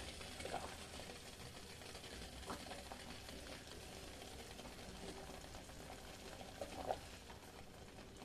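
Sugar syrup boiling in a stainless steel pot, a faint steady bubbling, with a few soft plops and knocks as chhena balls are dropped in; the loudest comes near the end.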